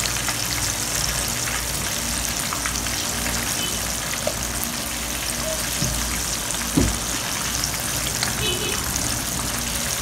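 Breadcrumb-battered shrimp deep-frying in hot oil in a wok: a steady, even sizzle.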